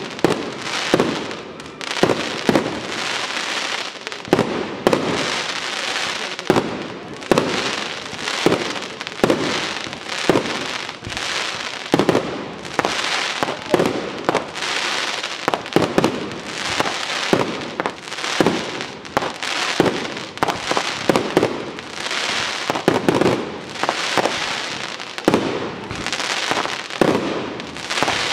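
Professional aerial fireworks display: a continuous barrage of shell bursts, with sharp bangs about every second over a steady crackle from the bursting stars.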